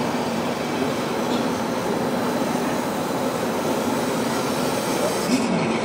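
Steady, even background din of a crowded indoor hall, with a faint steady low hum underneath.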